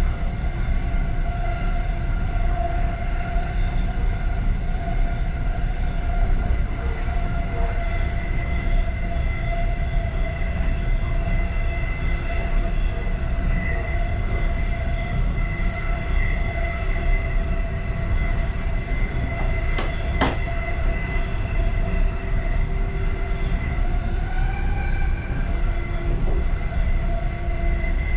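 Passenger train running at speed, heard from inside its last car: a steady low rumble of wheels on rails with a few steady high tones above it, and one sharp click about twenty seconds in.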